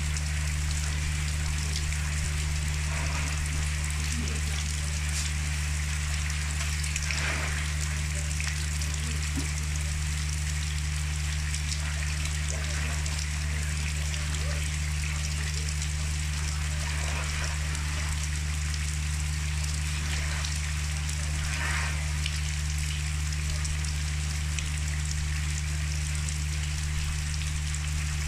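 Steady rain falling on wet ground and puddles, an even hiss, with a constant low hum underneath.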